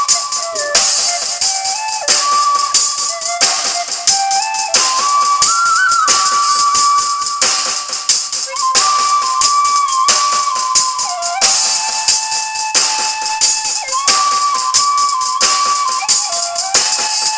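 A bamboo flute (bansuri) playing a melody of long held notes, with quick trills and small slides between them, over a backing track of high jingling hand percussion that keeps a steady beat.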